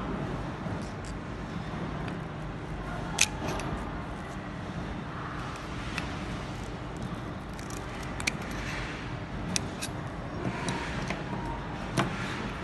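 Scattered sharp clicks and taps, about six in all, as the metal insert and plastic wheel handle of a thermostatic radiator valve are handled and pressed together by hand. A steady background noise runs underneath.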